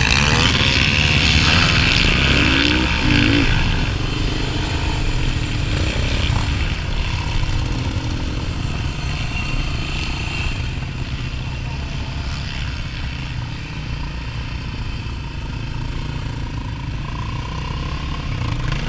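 Yamaha Raptor 250 quad's single-cylinder four-stroke engine running hard under race acceleration among other quads' engines. Loudest in the first few seconds, with the revs rising near the start, then a steady, slightly quieter drone.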